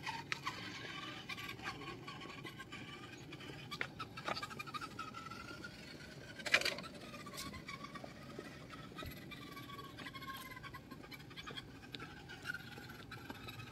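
Battery-powered RC model van's electric motor and gears whining, the pitch rising and falling as it speeds up and slows. Light scuffs and clicks run through it, with one sharp click about six and a half seconds in.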